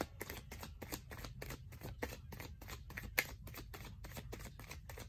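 A tarot deck being shuffled by hand: a quick, even run of soft card clicks, about five a second.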